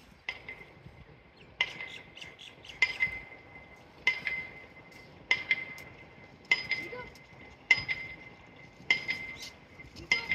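Metal striking metal: a sharp clink with a short ringing tone, repeated evenly a little less than once a second.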